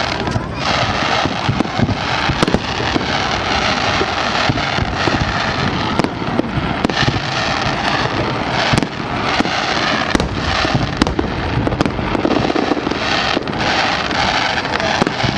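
Fireworks display: a dense, continuous crackle with many sharp bangs going off throughout.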